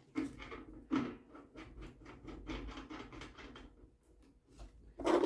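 Hands working small parts of a propane heater: a run of light plastic-and-metal clicks and rattles, quick and close together in the middle, with a sharper knock near the end.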